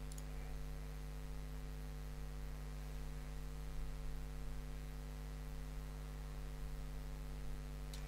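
Steady low electrical hum in several even tones, with no other sound.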